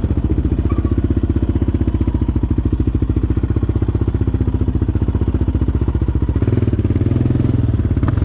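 Yamaha Raptor 700 sport ATV's single-cylinder four-stroke engine running at low revs with a fast, even pulsing beat as it is ridden slowly. About six and a half seconds in, the throttle opens a little and the engine note grows fuller.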